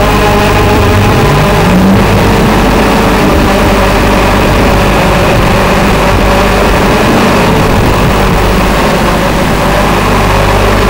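TBS Gemini hexacopter's electric motors and propellers whirring, heard through the FPV video link with a constant hiss over it; the pitch rises between about one and two seconds in.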